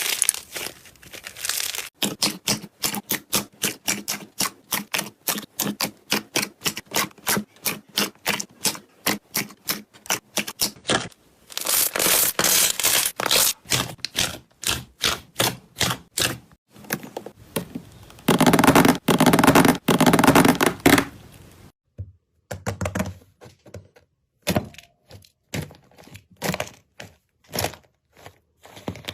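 Slime being worked by hand: a quick run of short, sharp clicks and pops, about three or four a second, then longer stretches of dense crackling, then scattered pops near the end.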